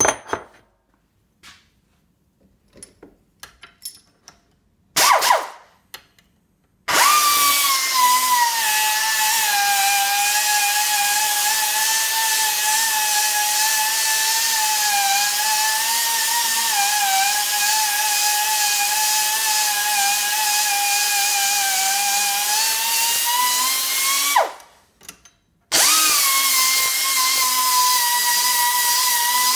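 Handheld power sander grinding the plasma-cut edge of a steel spoke held in a vise: a few knocks and clicks, a short burst about five seconds in, then a steady high whine whose pitch drops a little as it bites into the metal. It stops for about a second and starts again near the end.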